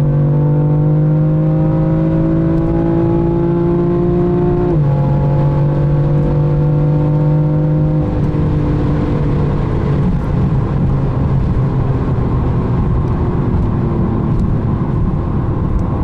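BMW M4 Competition's twin-turbo straight-six accelerating hard, heard inside the cabin. The engine note climbs, drops once at a quick dual-clutch upshift about five seconds in, and climbs again. About eight seconds in the throttle closes, and the note fades into steady wind and tyre noise as the car slows.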